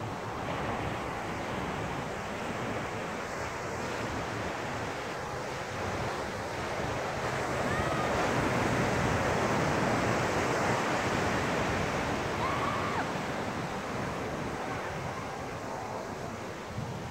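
Ocean surf breaking and washing up a sandy beach, with wind buffeting the microphone. The wash swells to its loudest about halfway through, then eases off.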